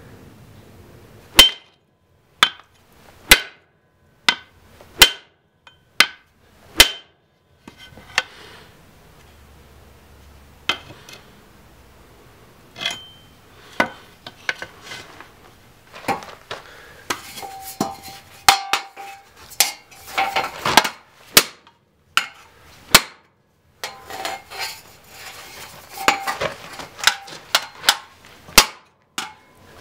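A tomahawk forged from truck-spring steel chopping into metal, first a steel bar and then sheet metal: a series of sharp metallic strikes. They come about once a second at first; in the second half they come in quicker clusters with a ringing tone.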